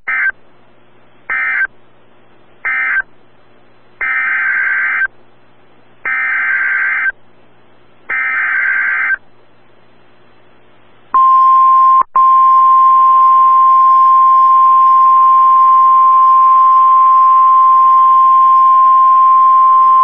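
NOAA Weather Radio Emergency Alert System signals: three short end-of-message data bursts, then three roughly one-second SAME header data bursts, each a harsh warbling digital screech. Then comes the steady 1050 Hz Weather Radio warning alarm tone that announces a new warning. It breaks off briefly about a second after it starts and then holds to the end.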